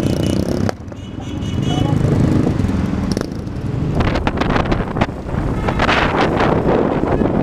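Motorcycle and car engines running in road traffic. The level drops sharply just under a second in, and from about halfway on wind buffets the microphone.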